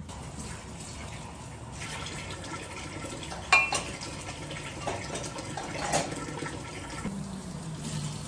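Kitchen tap running into a stainless steel sink while dishes are washed and loaded into a dishwasher rack. There is a sharp clink of dishware about three and a half seconds in and another about six seconds in.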